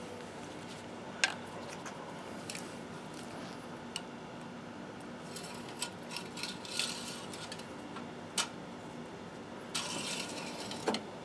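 Scattered light clicks and metal scrapes of a car engine's oil dipstick being pulled out, wiped and slid back into its tube to check the level, over a faint steady hum.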